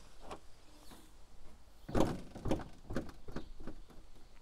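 Boot lid of a BMW E36 M3 coupe being unlatched and opened: one loud clunk about two seconds in, followed by several lighter clicks and knocks.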